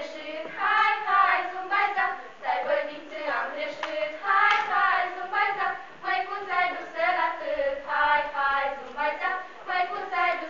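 A group of girls singing a folk song together in unison.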